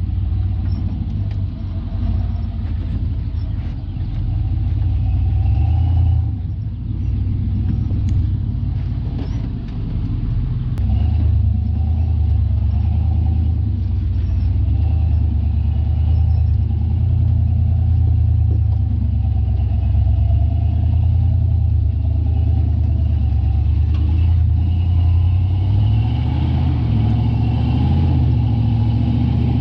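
Off-road Jeep engine rumbling low and steady while crawling over rough trail, its pitch shifting a little with the throttle.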